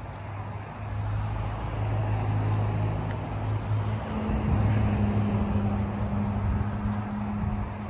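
Battery-powered blower fan of an inflatable T-rex costume humming steadily. It grows louder about a second in, and a second, higher hum joins about halfway through.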